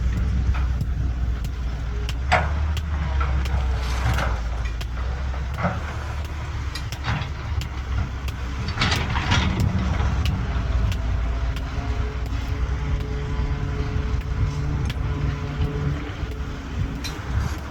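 Caterpillar 320BL excavator's diesel engine running, its pitch shifting after about ten seconds, with scattered metal clanks and knocks and a louder rattling crash about nine seconds in.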